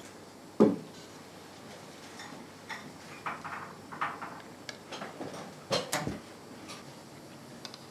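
Dishes and utensils being handled at a counter: a dull thump just over half a second in, the loudest sound, then a scatter of light clicks and knocks, with two sharper knocks close together near the six-second mark.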